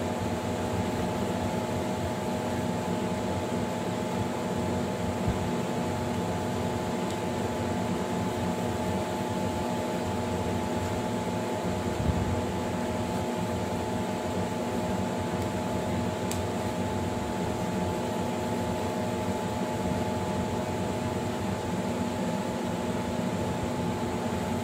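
Steady mechanical hum with several constant tones, from a running household appliance, with a single soft thump about halfway through as a dough ball is set down on a wooden board.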